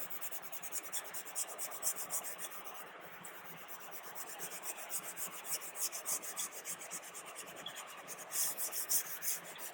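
Sanding block with wet sandpaper rubbing back and forth over a plastic headlight lens, in quick even strokes several times a second, wet-sanding off the yellowed, oxidized surface layer.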